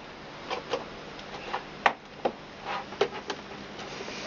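Irregular light clicks and scrapes of thin wire being fitted across the rim of a plastic tub.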